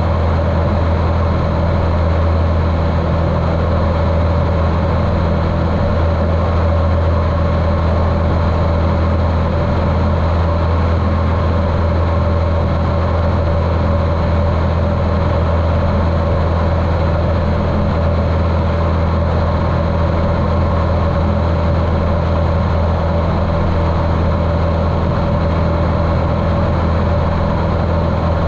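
Cessna 150L's Continental O-200 four-cylinder air-cooled engine and propeller running steadily at constant power, muffled by the GoPro's waterproof case.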